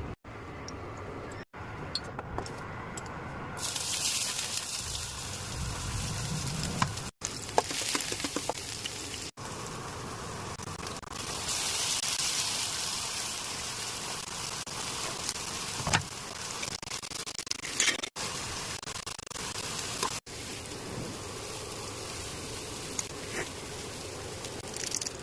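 Food frying in hot oil in a pan for street-style vegetable Maggi, a steady sizzling hiss that starts about four seconds in and is broken off several times by abrupt cuts.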